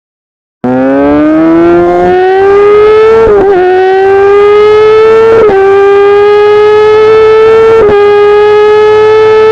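Sport motorcycle engine screaming at high revs under hard acceleration: the pitch climbs steeply, then three quick upshifts each briefly drop and break the note before it climbs again.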